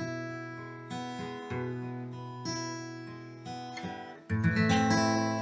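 Acoustic guitar fingerpicking the song's closing bars, single plucked notes ringing out about a second apart. About four seconds in comes a louder final A minor chord, swept across the strings from the fifth string and left to ring.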